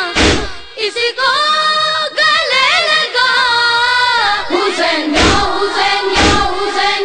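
A group of voices chanting a noha (Urdu lament) in unison, with the slaps of matam chest-beating keeping time about once a second at the start and again from about five seconds in.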